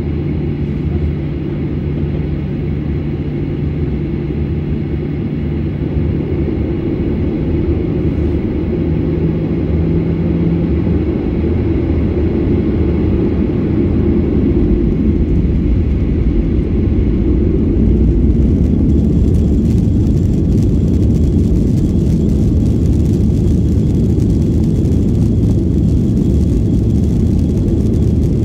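Jet airliner's engines heard from inside the cabin: a steady low rumble and hum that grows louder about halfway through as the engines spool up for takeoff, joined by a rising rushing hiss in the last ten seconds as the takeoff roll gets under way.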